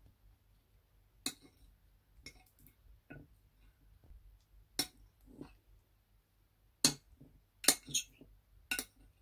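Slime being pulled off its container: a scattering of sharp clicks and clinks, five of them loud and the loudest in the last few seconds.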